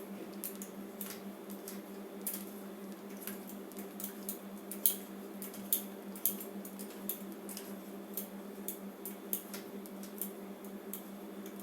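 Small irregular metallic clicks and ticks of an Allen key working the two clamp bolts on a scooter handlebar, over a steady low hum.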